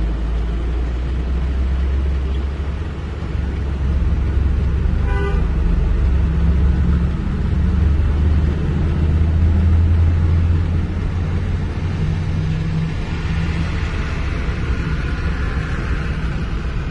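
A heavy vehicle's diesel engine runs with a steady, deep rumble that swells between about 4 and 10 seconds in. A single short horn toot sounds about five seconds in.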